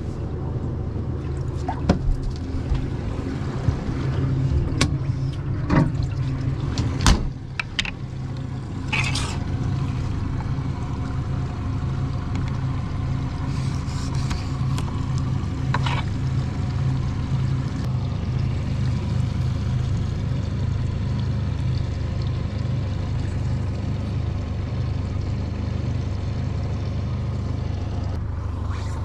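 A boat's outboard motor running steadily, a low even hum. Several sharp knocks and clicks in the first nine seconds or so, from fishing gear being handled on the deck.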